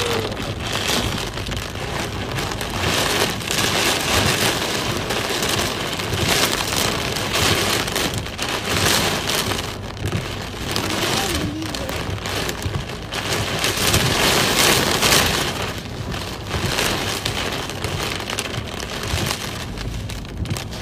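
Heavy rain drumming on a car's windshield and roof, heard from inside the cabin, a dense steady hiss that swells and eases every few seconds.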